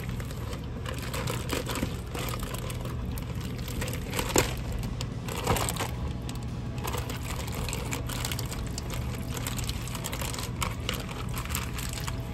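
Hands squishing and turning raw chicken in a wet marinade, with scattered rustling and a couple of sharper knocks about four and a half and five and a half seconds in, over a steady low hum.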